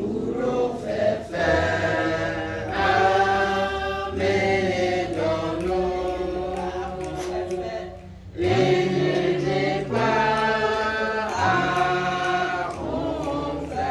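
A group of voices singing together in long held notes, with a short break about eight seconds in before the singing resumes.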